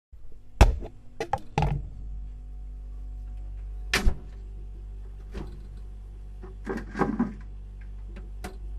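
A series of sharp knocks and thumps, the loudest about half a second in, another about four seconds in and a quick cluster near seven seconds, over a steady low hum.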